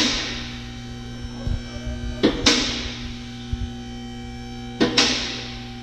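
Two-post car lift's electric hydraulic pump motor humming steadily as the lift raises a car, with the safety locks clanking in pairs about every two and a half seconds.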